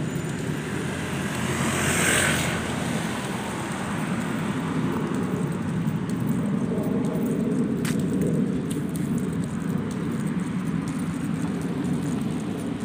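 Road traffic: cars driving past on a city street, over a steady low traffic rumble, with one car passing close and loud about two seconds in.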